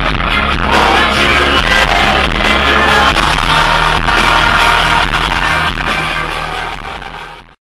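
Live band playing on stage with a lead singer, heard from the crowd. The music fades out near the end.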